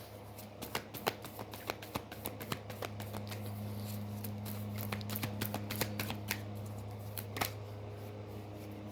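Tarot cards being shuffled by hand: a run of quick, irregular card snaps and riffles. A steady low hum sits underneath.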